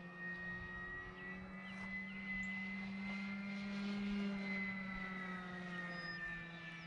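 Electric motor and propeller of a Flex Innovations RV8 G2 60E radio-control plane whining steadily in flight, rising a little in pitch and loudness about four seconds in, then easing off.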